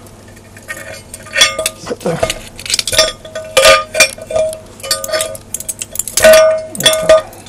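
Metal clinks and knocks as the gear-and-motor frame of an Emotator elevation rotator is worked into its aluminium housing. Parts bump and scrape against the housing edges, and some knocks leave a short ringing note. The loudest knock comes near the end.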